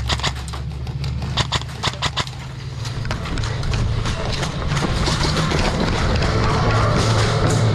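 A few sharp clicks in the first couple of seconds, then background music building up and taking over.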